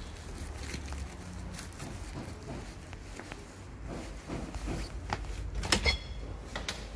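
Handling noise: a phone camera rubbing and knocking against a fleece coat as its holder moves, with irregular soft clicks and one louder, sharper clack about six seconds in.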